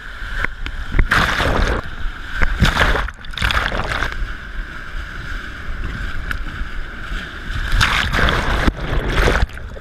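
Whitewater rushing around a kayak, with splashes from paddle strokes coming in bursts and wind buffeting the action camera's microphone.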